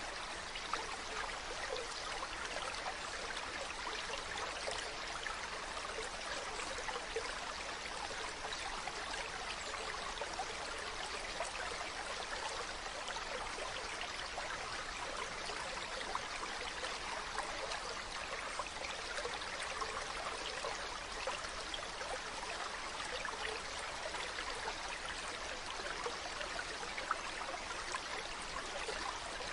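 Mountain stream running over rocks: a steady rush of water with fine splashing and babbling.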